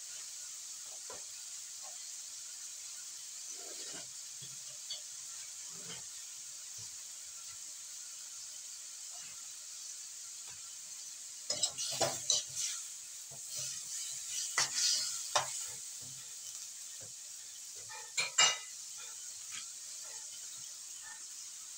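Chicken feet sizzling steadily in a wok. About halfway through, a utensil scrapes and knocks against the wok in a run of clattering strokes as the feet are stirred and turned, and there are two more knocks near the end.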